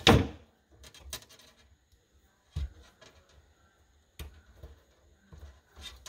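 Hands-on electrical wiring work inside a wooden sink cabinet: one loud knock at the start, then a few light scattered clicks and knocks as stiff wires are handled at an electrical box and tools are moved on the cabinet floor.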